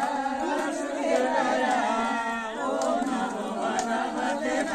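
A group of women singing a devotional bhajan together without instruments, with a few hand claps.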